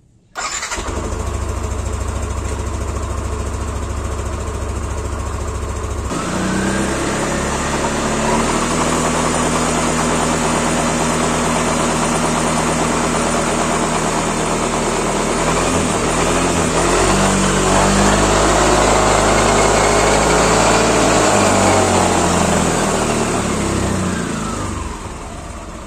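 Yamaha NMAX 155 scooter's single-cylinder engine starting at once and idling, then revved from about six seconds in with the pitch rising and falling as the CVT drives the raised rear wheel, before settling back near the end. It is a test run to check whether the CVT knocking is gone after a new rear pulley bearing.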